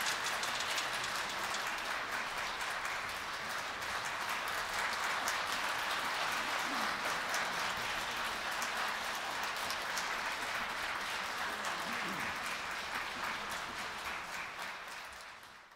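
Theatre audience applauding, a dense steady clapping that fades out near the end.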